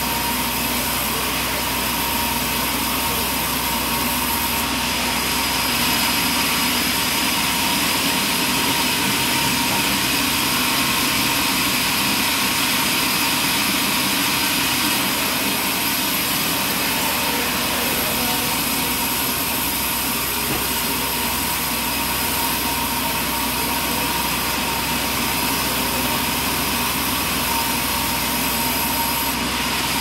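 Large band sawmill running steadily, its band blade sawing boards from a log, with a constant loud machine noise and a steady high whine.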